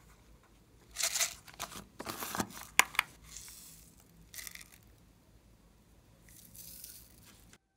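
Plastic sequins being handled: a plastic container of sequins clicks sharply as it is opened, and the sequins rattle and crinkle in short bursts as they are poured into a hand and scattered over slime.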